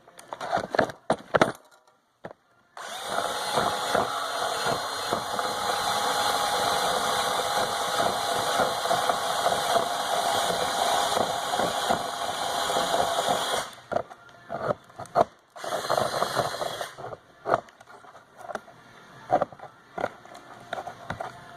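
Cordless drill running steadily with a side-cutting twist bit for about eleven seconds as it cuts a slot in a plastic bumper piece, its motor whine holding one steady pitch. Short knocks and scrapes of the plastic and drill come before it starts and after it stops.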